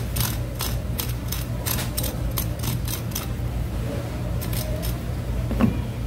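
A large knife cuts through a fish's rib bones in a quick series of short, crisp crunching strokes, several a second, with a pause near the middle. A single thump comes near the end, over a steady low hum.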